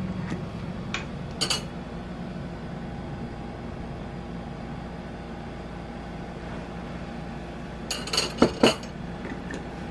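Metal spoon clinking against dishware while oil is spooned over fish in a ceramic baking dish. A couple of light clinks come about a second in, and a quick run of louder clinks comes near the end, over a steady low hum.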